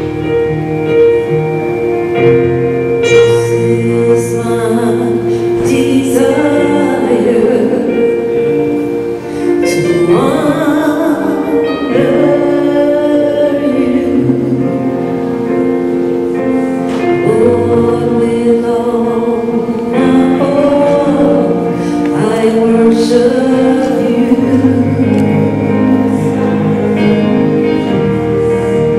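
Gospel music: voices singing over long held chords.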